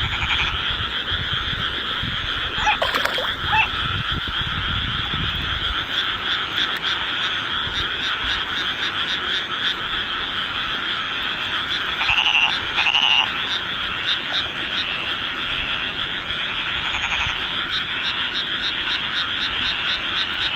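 A dense chorus of frogs calling steadily, the calls overlapping in a fast pulsing trill, with a few louder nearby calls about three seconds in and again around twelve to thirteen seconds. A low rumble runs under the first six seconds.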